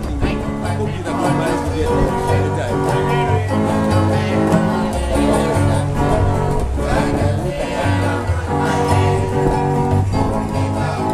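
Mento band playing: an acoustic-electric guitar strummed through a small amplifier, a banjo picking along, and a rumba box, a large bass thumb piano that its player sits on, plucking a bass line that moves from note to note.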